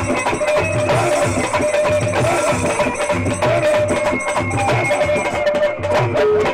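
Haryanvi folk dance music: a dholak drum beats a fast, steady rhythm under a held, ornamented melody line.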